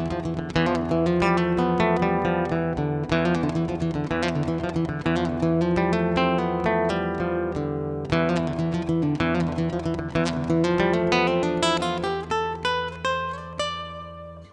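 Background music: acoustic guitar picking runs of notes, thinning out near the end.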